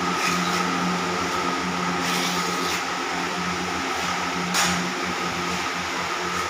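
Steady mechanical hum with a constant low drone and a thin higher tone over a hiss, broken by a short sharp knock about four and a half seconds in.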